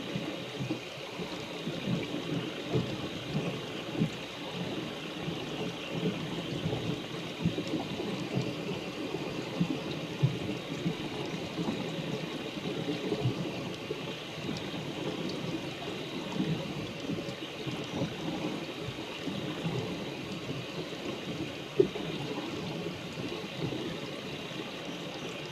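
Steady rain falling, with many small irregular ticks of drops and one sharper tick about 22 seconds in.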